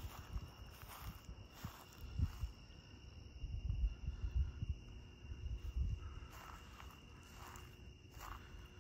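Footsteps of a person walking outdoors, about one every half second or so, over a steady high trill of night insects such as crickets. Low rumbling on the microphone swells in the middle.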